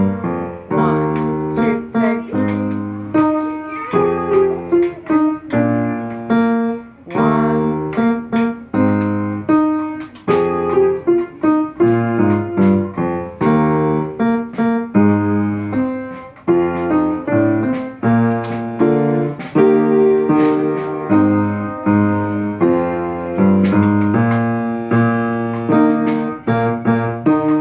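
Piano playing a busy, rhythmic passage of many short notes with sharp attacks.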